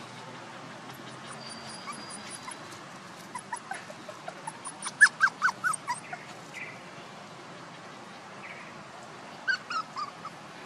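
Puppies whimpering and yipping: a quick run of short cries about three to six seconds in, then a shorter burst of cries near the end.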